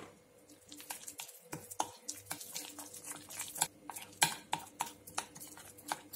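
A metal spoon stirs a thick gochujang-based chili seasoning paste in a ceramic bowl. It makes irregular light scrapes and clinks against the bowl's sides.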